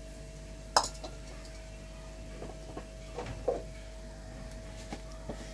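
Kitchen handling sounds as ginger paste is added to raw beef in a steel bowl: a sharp click about a second in, then a few soft taps and squishes, over a steady faint hum.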